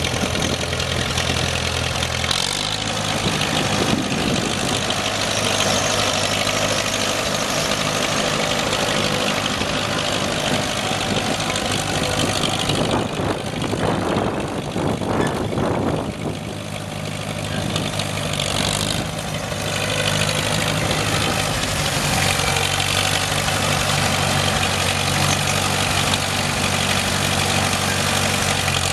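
The freshly rebuilt four-cylinder gas engine of a McCormick WBK tractor running at a steady idle. Its note shifts about two seconds in and turns rougher and noisier for a few seconds midway before settling back.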